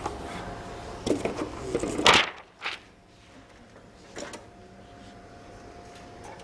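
A few knocks and scrapes from things being handled, the loudest about two seconds in, followed by a faint steady hum.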